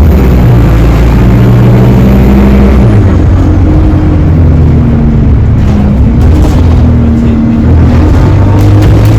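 Alexander Dennis Enviro 200 single-deck bus under way: diesel engine running with a whining drive axle that sounds electric. The engine note changes about three seconds in, and a faint high whine is heard near the start.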